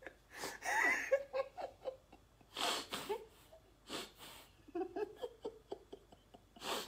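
A man laughing with his hands over his mouth, in several short breathy bursts separated by brief pauses.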